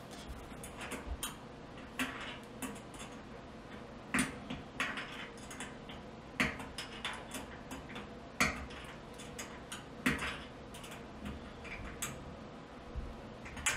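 Irregular light metallic clicks and taps from a small wrench and gas burner parts as a propane (LP) burner orifice is fitted and snugged up on a gas range cooktop, with a few sharper knocks among them.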